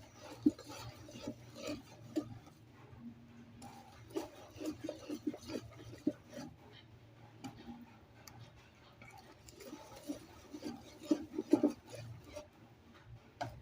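A utensil stirring mashed banana and cake batter in a mixing bowl, with light, irregular taps, clicks and wet scrapes.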